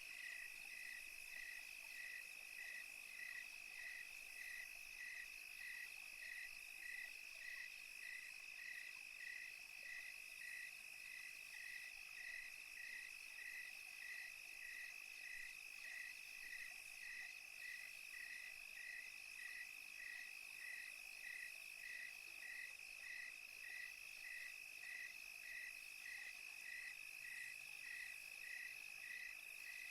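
Crickets chirping in a faint night chorus: one steady high trill, with another chirp pulsing evenly about twice a second, over a soft hiss.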